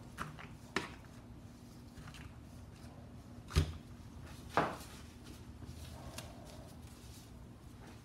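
A few light knocks and taps of things being handled on a worktable, the loudest a dull thump about three and a half seconds in, over a low steady hum.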